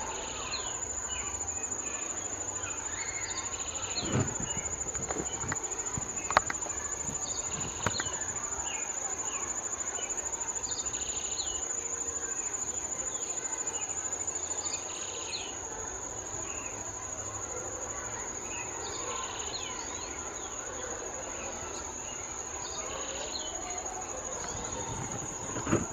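A steady, high-pitched insect drone with scattered short bird chirps over it. A few sharp knocks sound about four, six and eight seconds in, and again near the end.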